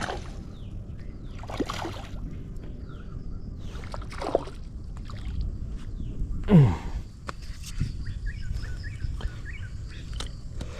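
Water splashing several times, each splash a short sweep, about two seconds apart, with the loudest one a little past halfway. Steady river-bank background noise underneath, with faint high chirps later on.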